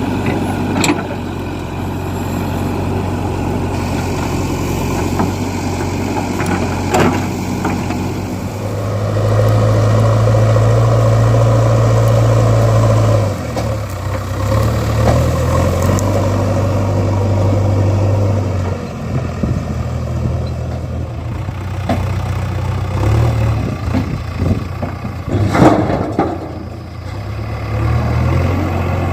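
JCB backhoe loader's diesel engine working under load, revving up for several seconds and then rising and falling as the machine works, with a few sharp knocks.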